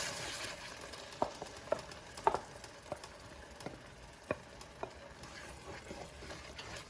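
A utensil stirring shiro in a pot, tapping lightly against the pot at irregular moments over a faint sizzle.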